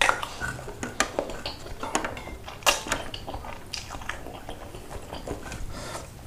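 Eating instant ramen noodles in broth: slurping and chewing, with a metal spoon and fork clinking sharply against a ceramic bowl and a stone plate. The clinks and mouth noises come thick and fast for about four seconds, then thin out.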